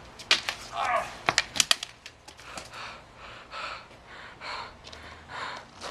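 A few sharp clicks and scuffs, then a person breathing hard, one noisy breath about every second, as if winded from running off.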